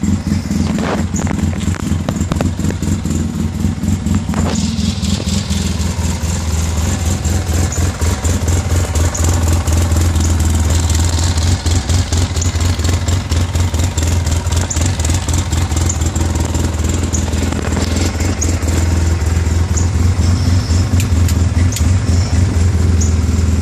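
2013 Polaris RZR S side-by-side engine idling steadily, with an even, rapid pulsing.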